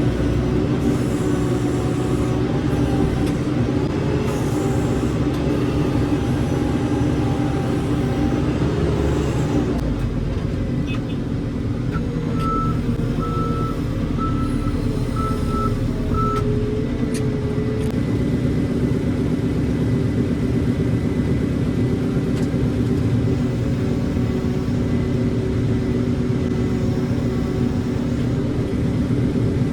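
Heavy diesel machinery running steadily, with a reversing alarm beeping about six times over roughly four seconds near the middle.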